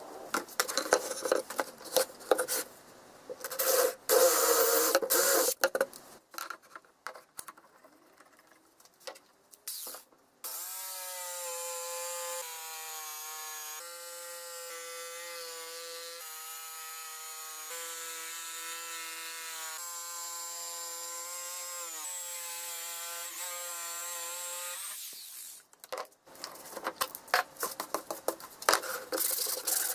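Electric jigsaw cutting a wooden board, its motor running steadily for about fourteen seconds with small dips in pitch as the blade loads. Before it come irregular scraping and knocking as the board is handled and clamped, and near the end scraping and rubbing on the wood begins.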